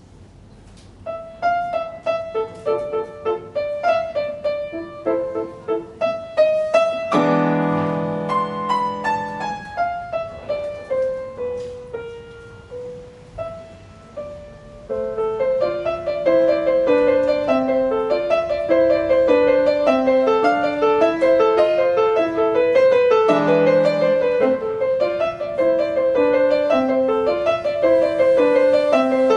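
Grand piano played solo in a classical piece. It starts about a second in with a sparse melody, strikes a loud low chord about seven seconds in, slows and softens, then from about fifteen seconds goes on louder with a steady run of notes under the melody.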